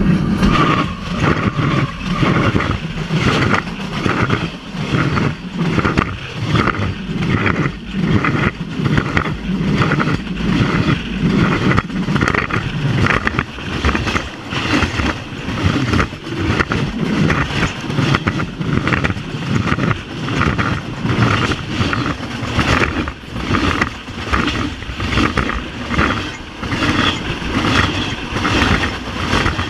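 Union Pacific freight train rolling directly overhead, heard from between the rails: a loud, rhythmic clatter of steel wheels on the rails over a steady low rumble.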